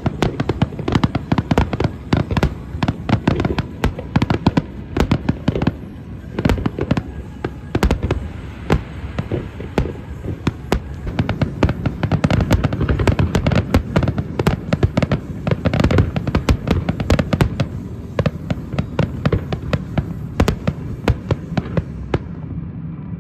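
Aerial fireworks display bursting in rapid succession, many sharp bangs and crackles a second over a continuous low rumble.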